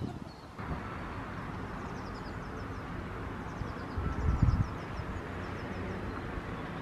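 Outdoor park ambience: a steady background hiss with birds chirping in short high runs, and a brief low rumble about four seconds in.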